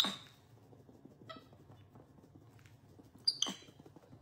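Capuchin monkey giving two short, high-pitched squeaky chirps, one right at the start and another about three and a half seconds in, with a faint tick in between.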